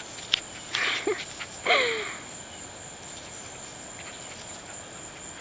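Small dog rolling on its back in grass, giving two short breathy grunts about one and two seconds in, the second falling in pitch, then a steady background hiss.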